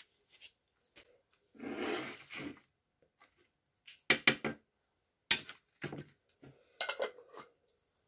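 Sharp clinks and knocks of a metal sieve and baking tray being handled on a tabletop, in an irregular string of about a dozen strokes. Before them, about two seconds in, comes a brief rustle of paper.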